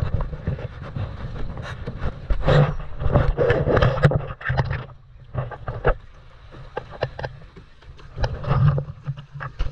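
Water splashing and sloshing around a kayak close to rock, over a rumble of wind buffeting the camera's microphone; the splashing is loudest between about two and four and a half seconds in.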